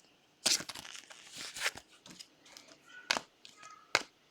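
Trading cards being handled and flipped through, with soft rustling and a few sharp clicks as cards slide against each other.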